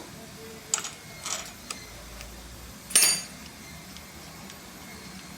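Metal tools and engine parts clinking and clacking during motorcycle engine disassembly: a few light clicks in the first two seconds, then one loud, ringing metallic clank about three seconds in.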